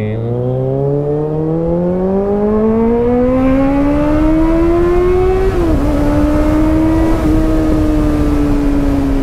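Motorcycle engine pulling away from a standstill, its note rising smoothly for about five seconds under throttle. It dips briefly, then settles into a steady cruise that falls slowly, with wind rushing over the microphone.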